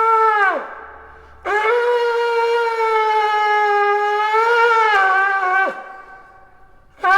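A blown horn sounding long, steady, loud notes: one ends just after the start, a second lasts about four seconds from about a second and a half in, each sliding down in pitch as it dies away, and a third blast starts right at the end.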